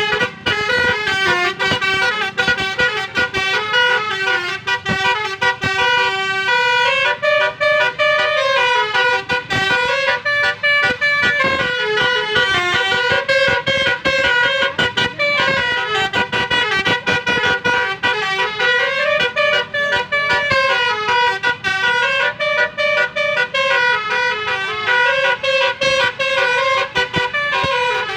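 A Basuri telolet musical horn playing a melody, held notes stepping up and down in a phrase that repeats several times.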